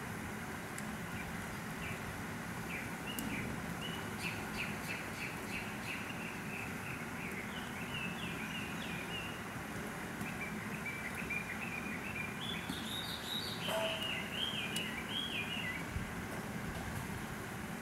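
A small songbird singing quick runs of short chirping notes, in two long phrases with a brief pause about ten seconds in, over a steady outdoor background hiss.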